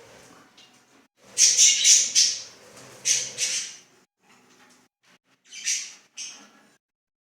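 Pet cage birds squawking and chirping: loud, harsh squawks in a run about a second in, again around three seconds, and near six seconds, with softer calls between.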